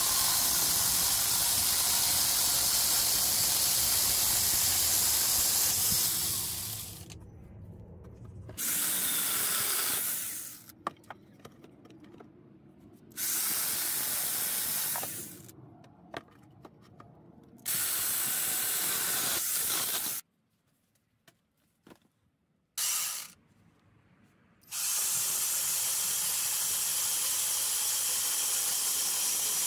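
Angle grinder fitted with a chainsaw bar-and-chain attachment, running at high speed and sawing through logs. It runs in several bursts, the first and last several seconds long, spinning down into short quiet pauses between cuts.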